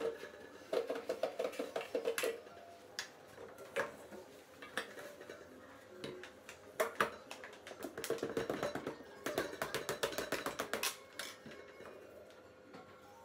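Metal utensil scraping around the inside of a round aluminium cake pan, then rapid clattering taps and knocks on the upturned pan to free the baked cake onto another pan.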